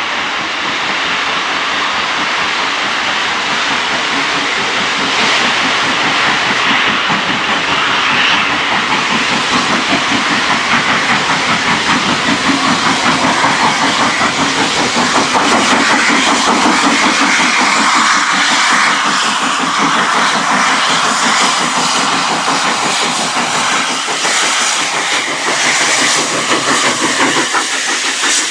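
LMS Royal Scot class 46100, a three-cylinder 4-6-0 steam locomotive, chuffing past with a train, its exhaust beats coming in quick succession over a steady hiss of steam. It grows louder as it draws near.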